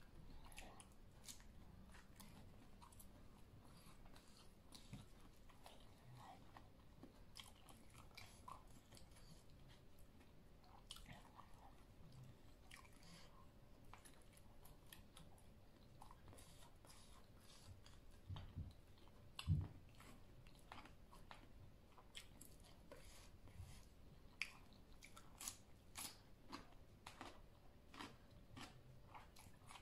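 Close-miked chewing of a Thai spicy mixed salad with pork sausage, shrimp and noodles, with many small sharp mouth clicks. A single louder low thump comes a little past halfway.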